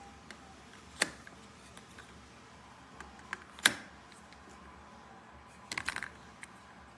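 Scattered sharp clicks and taps over a faint steady hiss: one about a second in, the loudest a little past three and a half seconds, and a quick run of small clicks near six seconds.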